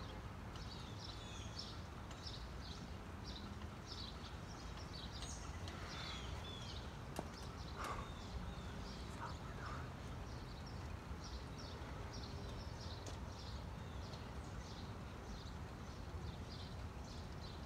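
Birds chirping over and over, many short high calls, over a steady low rumble of wind on the microphone.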